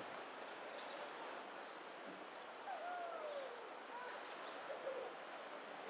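Outdoor harbour ambience: a steady wash of water and wind noise, with a few faint, short whistled bird calls that bend up and down around the middle.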